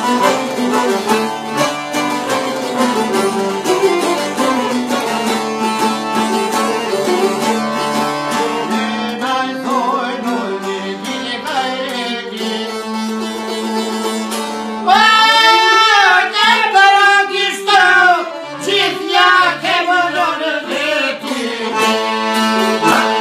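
Albanian folk song played on two çiftelis (long-necked two-string lutes) and an accordion. The accordion holds a steady drone under quick plucked notes. A man begins singing about nine seconds in with ornamented, sliding lines that are loudest around the middle.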